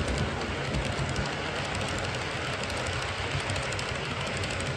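HO-scale model coal hopper cars rolling past on the layout track: a steady rumble of small metal wheels on rail with rapid light clicking.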